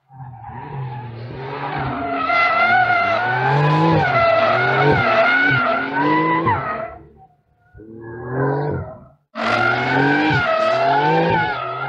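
Tyres of a 2022 Porsche 911 GTS (992) squealing in a long, wavering howl as the car drifts, with its turbocharged three-litre flat-six running underneath. The sound breaks off twice in the second half, and the squeal picks up again after each break.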